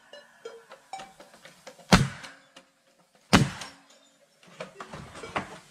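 Bostitch pneumatic coil nailer firing nails into pine pallet boards: two sharp shots about a second and a half apart, with faint clicks and knocks of the tool and boards between them.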